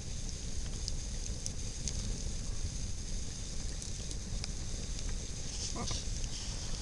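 Campfire crackling: a steady rush of burning wood with scattered sharp pops and snaps, and a short rising squeak about six seconds in.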